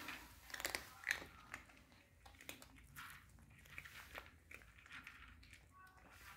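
Cats chewing food: a run of faint, irregular crunching clicks, loudest in the first second or so.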